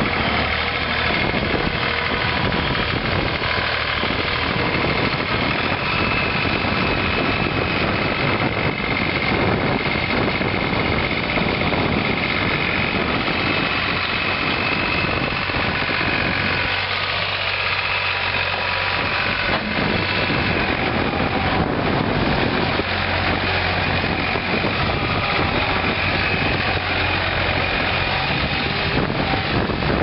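Three-cylinder turbo diesel engine of a 1997 New Holland LX885 Turbo skid steer running steadily.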